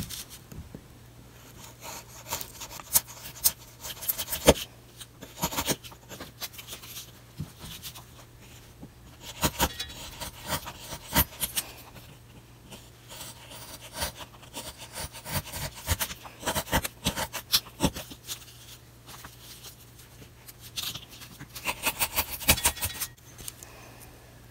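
A carving knife cutting and shaving a small wooden lure blank: the blade scrapes and clicks through the wood in quick irregular strokes that come in bursts with short pauses.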